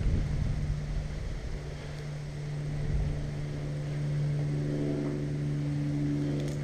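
A steady motor hum, louder through the second half, with a faint click about two seconds in and another near the end.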